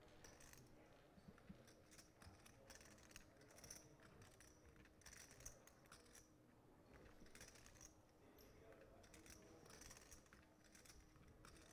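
Near silence: faint room tone with scattered soft clicks.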